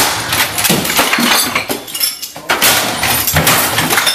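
Things on a desk being smashed with a stick: a dense run of crashes and clattering with breaking glass.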